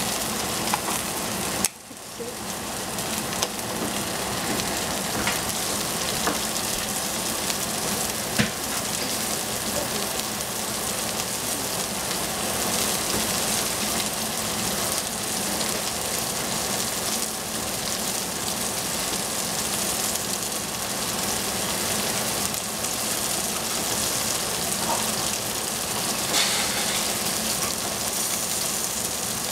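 Cauliflower and shiitake mushrooms sizzling in a stainless steel saucepan on a stove burner, a steady frying hiss. The sound briefly drops out about two seconds in, then the sizzle carries on evenly.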